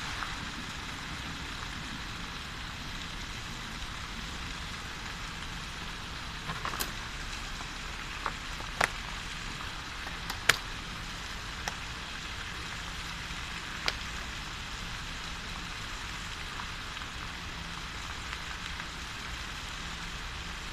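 Steady splashing of a plaza fountain's water jets, with a low rumble underneath. A handful of sharp clicks and knocks come through the middle stretch, the loudest a little past halfway.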